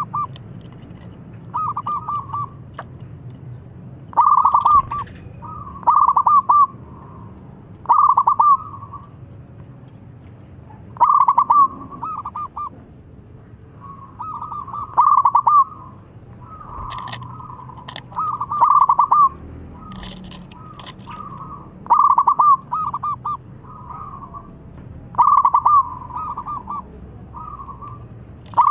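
Zebra dove (perkutut) cooing: short phrases of quick rolling notes repeated every second or two, some phrases much louder than others.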